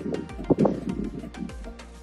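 Outdoor playground xylophone struck with a mallet: a run of short notes on its bars in an irregular rhythm, each one dying away quickly.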